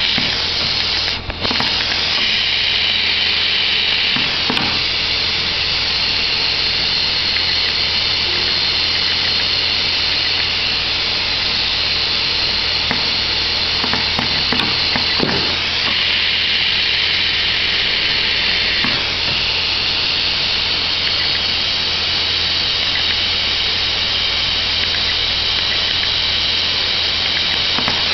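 Hot air seam-sealing welder running: a steady hiss of hot air from its nozzle over a low hum, with a few faint knocks as the fabric and tape are handled.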